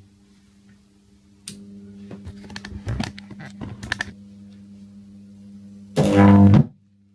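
A bank of microwave oven transformers switches on with a click and hums at mains frequency, with scattered crackles and clicks. About six seconds in, a loud buzzing high-voltage arc flares for about half a second, then cuts off abruptly.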